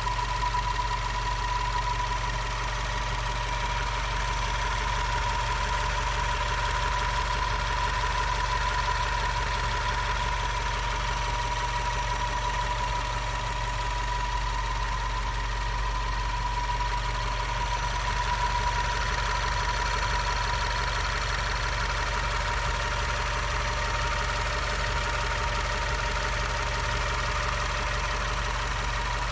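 Subaru WRX engine idling with a steady high-pitched whine held over its low drone.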